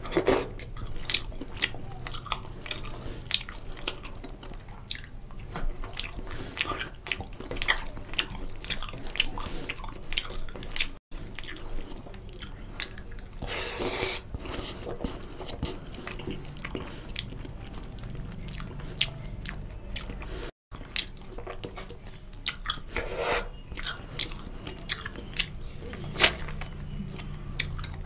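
Close-miked chewing and mouth smacking of a man eating chicken curry and fried rice with his hand: a steady run of short, wet clicks and smacks. The sound cuts out for an instant twice.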